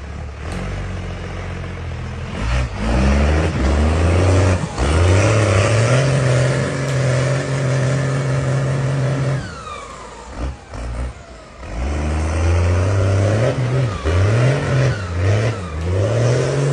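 Jeep engine revving hard in repeated bursts, the revs climbing and falling as the wheels spin for grip on a snowy, muddy climb. The revs drop off for a couple of seconds about midway, then pick up again.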